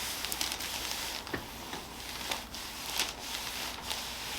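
Soft rustling and brushing of hands on skin and clothing during a chiropractic neck adjustment, in several faint swells, with one small click about a second and a half in.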